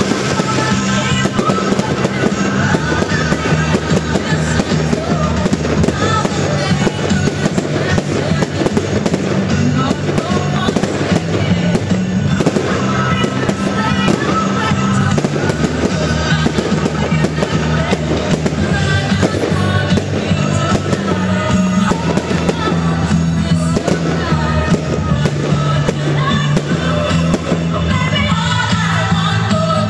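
Fireworks display: a rapid, continuous barrage of aerial shells bursting with bangs and crackle, loud over music playing along with the show.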